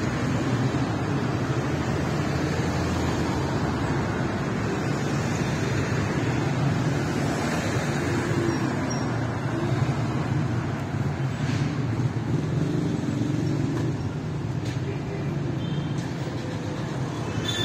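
Steady city street traffic noise: the continuous hum of car engines and tyres on the road.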